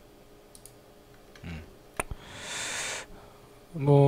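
Computer mouse clicks: a few faint ticks and one sharp click about two seconds in. A short hiss follows the click, and a brief voiced hum comes near the end.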